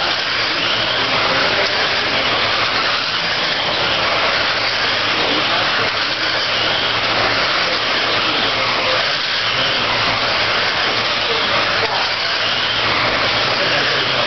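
A pack of radio-controlled dirt oval race cars running laps, 13.5-turn brushless electric class: a steady whir of motors and gears with the tyres on the dirt.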